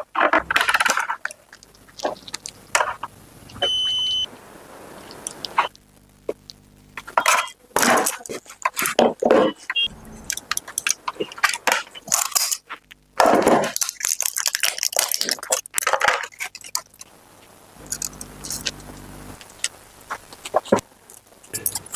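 Repeated clicks, knocks and clatter of small hard parts being handled, with a brief high beep-like tone about four seconds in and two short stretches of low steady hum.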